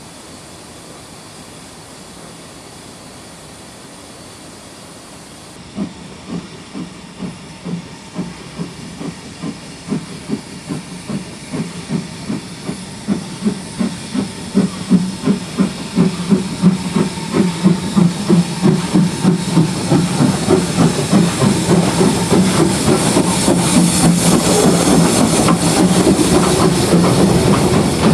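BR Ivatt Class 2 2-6-0 steam locomotive 46521 starting away. A steady hiss is followed, about six seconds in, by exhaust chuffs that begin slowly and quicken and grow louder as the engine gathers speed past, with a swelling hiss of steam.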